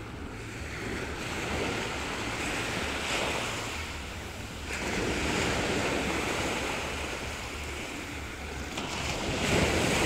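Small sea waves breaking and washing up a sandy beach, a rushing wash that swells and fades every few seconds.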